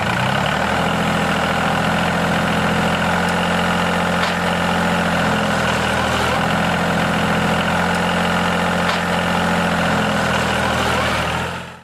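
A diesel engine idling steadily. Its pitch settles about a second in, and the sound cuts off abruptly at the end.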